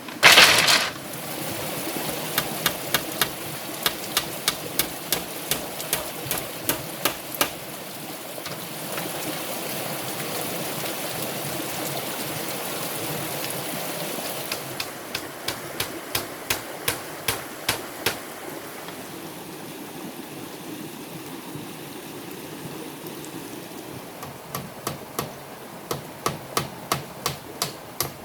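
Runs of sharp tool strikes on wood, about two a second, as in hammering or chopping with a blade, after one loud thud at the start. A steady hiss fills the pauses between the runs.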